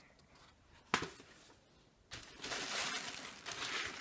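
A single sharp click about a second in, likely the book being set down, then from about two seconds in a steady crinkling rustle of wrapping material as hands dig through a box.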